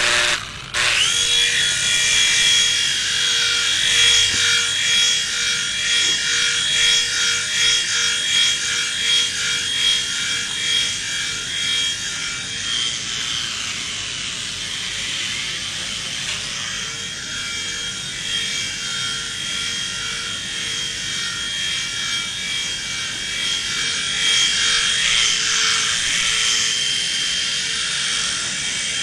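Toy infrared-controlled helicopter's small electric rotor motors spinning up about a second in, rising in pitch, then running with a steady high whine. The whine eases in the middle and swells again near the end.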